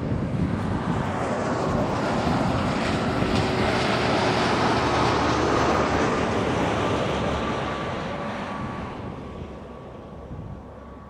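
A passing vehicle: a rushing engine-and-wind noise with a faint steady hum that swells to its loudest about halfway through, then fades away.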